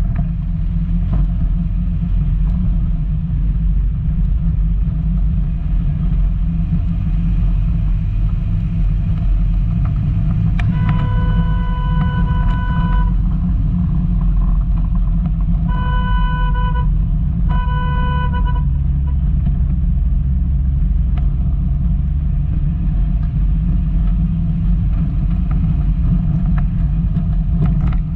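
Volkswagen Golf Mk2 driving off-road, its engine and road noise making a steady loud rumble. A car horn honks three times: one long blast about eleven seconds in, then two shorter ones a few seconds later.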